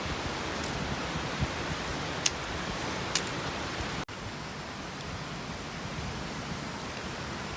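Wood fire crackling: a steady hiss with two sharp pops about a second apart, the hiss cutting out for an instant about four seconds in and then running on slightly quieter.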